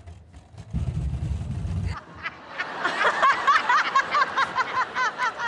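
A low, muffled rumble for about a second as a man is lifted out of a flight case. Then an audience laughs and chuckles, with many short overlapping laughs.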